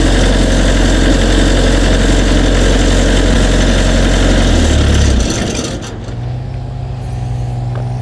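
Diesel engine of a compact construction machine running fast, then settling to a lower, quieter idle about five seconds in. The engine is running again after its clogged fuel banjo-bolt screen filter was cleaned.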